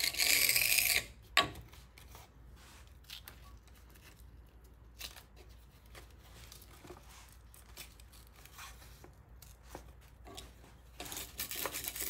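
Self-adhesive sandpaper being torn and pulled apart by hand. There is a loud ripping tear in the first second and a single sharp knock just after it, then faint rustles and ticks of handling. A longer rustling tear comes near the end.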